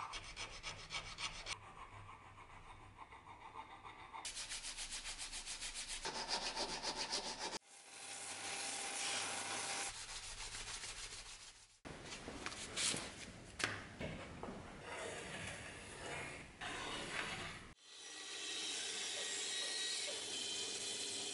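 A hand file rasping back and forth over a walnut knife handle clamped in a bench vise, in quick repeated strokes, with a few abrupt cuts between takes. For the last few seconds a bandsaw runs steadily, cutting through a pine board.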